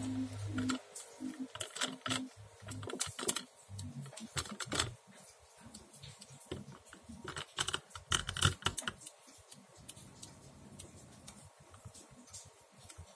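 Quick, irregular light clicks and taps from a toy van and other toys being handled on a tabletop. The clicks thin out after about nine seconds.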